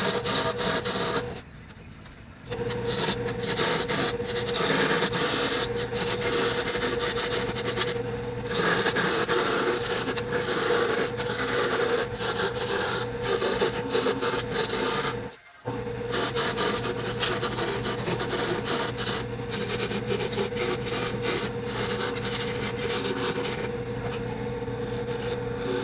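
Wood lathe running with a steady motor hum while a turning tool cuts green osage orange, a continuous scraping, hissing noise with uneven streaks as the tool works the wood. The sound drops out briefly twice, once about a second and a half in and once about halfway through.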